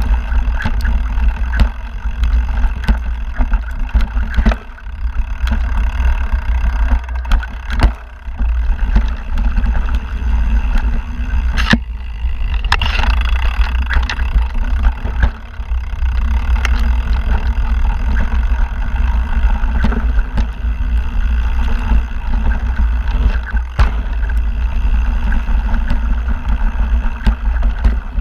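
Mountain bike rolling fast down a rocky dirt trail: a heavy, steady wind rumble on the camera's microphone, with frequent sharp rattles and knocks as the bike goes over rocks and roots.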